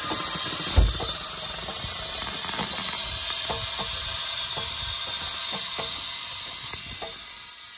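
Compressed air hissing into a semi truck's rear air-suspension bags as they are raised to test a new air-line fitting for leaks. There is a thump about a second in and a series of light clicks, and the hiss drops off near the end.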